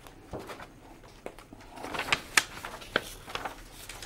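Sheets of paper rustling and crackling as they are handled and leafed through, with a few sharp crinkles between about two and three seconds in.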